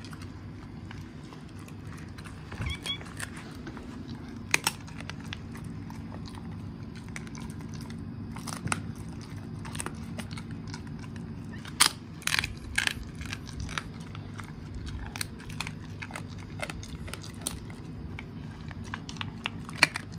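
Golden retriever chewing a raw deer rib, the bone cracking and crunching between its back teeth in irregular sharp snaps, most of them clustered about twelve seconds in.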